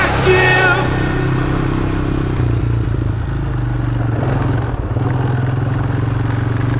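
ATV engine running steadily under a light throttle while riding, its pitch shifting a little a couple of times.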